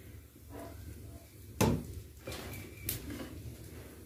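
Metal ladle knocking against an aluminium cooking pot of hot curdled milk: a sharp knock about one and a half seconds in and a lighter one near three seconds, over a faint low hum.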